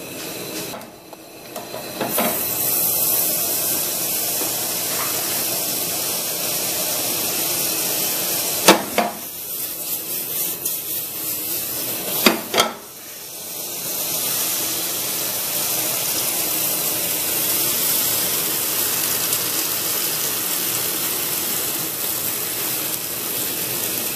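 Pancake batter sizzling in hot butter in a frying pan on a gas burner: a steady hiss that starts about two seconds in. Two sharp knocks come about nine and twelve seconds in.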